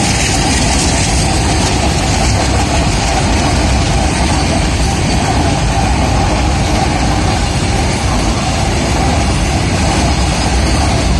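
Covered goods wagons of a freight train rolling past at speed close by: a loud, steady rumble of steel wheels on the rails.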